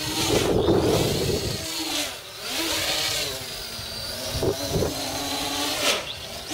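V-tail multirotor's four 2212 1000 kV brushless motors and 8-inch propellers buzzing in flight, the pitch rising and falling again and again as the throttle is worked. Wind rumbles on the microphone, loudest in the first second or so.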